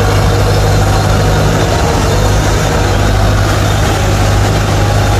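Kubota DC-93 combine harvester's diesel engine running steadily with an even low hum as the machine creeps forward on its rubber tracks.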